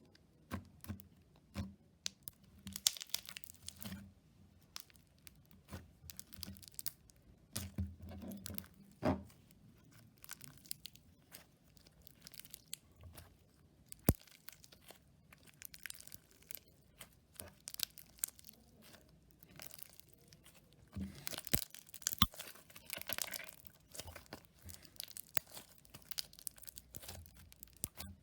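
Slime handled by hand, stretched and pressed, giving irregular crackling and popping sounds, with denser runs near the start and again about three quarters of the way in. One sharp click comes about halfway through.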